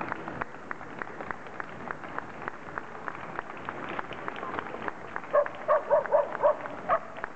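Quick, regular ticking steps of handlers trotting their dogs around the ring, then a dog barking: a rapid string of about seven short, high barks starting about five seconds in.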